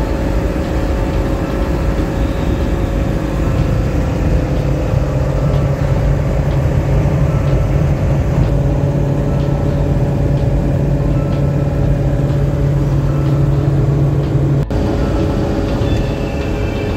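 Cab noise of a 2002 Ford E450 ambulance conversion cruising at highway speed: its 7.3-litre Power Stroke turbo-diesel V8 drones steadily at about 2,000 rpm under road and wind noise. A steady low hum comes in about five seconds in and stops suddenly near the end.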